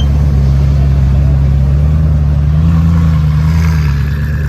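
A supercar's engine running with a deep, steady rumble. Its pitch lifts slightly for a moment about two and a half seconds in, then settles back.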